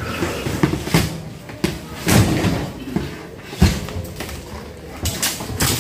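About half a dozen irregular bangs and crashes as a worker smashes the light framing and wall panels of a temporary structure with a bar during demolition.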